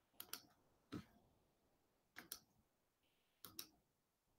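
Faint, sharp clicks of a computer mouse, mostly in quick pairs like double-clicks: a pair, then a single click, then two more pairs about a second and a quarter apart, as the live stream is being shut down.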